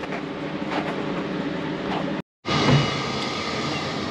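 Steady mechanical hum and rumble, broken by a short silent gap a little over two seconds in.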